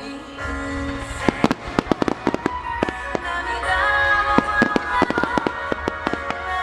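Firework shells bursting in quick succession over music: sharp bangs come thick and fast from about a second in, over a low rumble.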